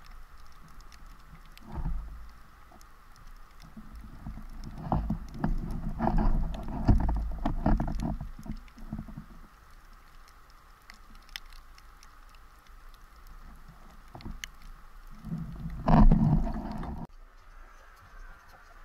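Underwater sound heard through an action camera's housing: scattered clicks and crackling, with low rumbling swirls of moving water and knocks. It is loudest between about four and nine seconds in, with a brief loud swell near sixteen seconds.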